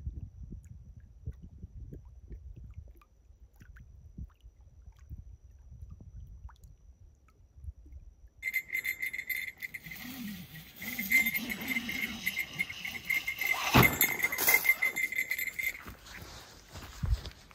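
A low rumble of wind on the microphone, with no calls, for about the first eight seconds. The sound then changes suddenly to a steady insect chirring with a high pulsing buzz, broken by a sharp knock about fourteen seconds in.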